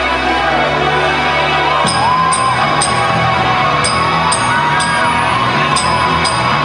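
Music with a steady beat: sustained bass notes and a gliding melody line, with drums coming in about two seconds in.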